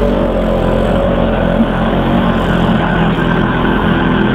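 Quad bike (ATV) engines running, the nearest one at a steady pitch while another quad pulls away up a steep hill.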